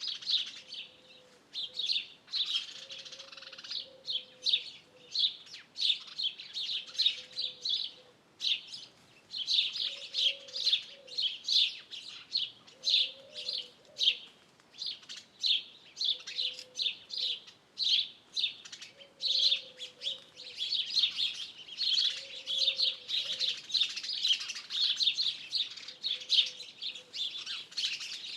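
Dawn-chorus-like mix of songbirds chirping and singing densely and continuously, with a low call repeating every couple of seconds underneath.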